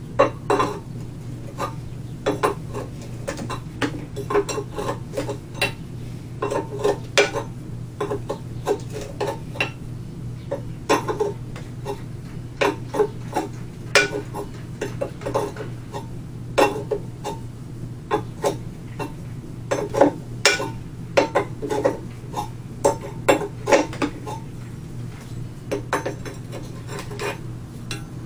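Wrench working the 1 1/16-inch main bearing cap nuts on an antique hit-and-miss engine: irregular clusters of short metallic clicks and clinks.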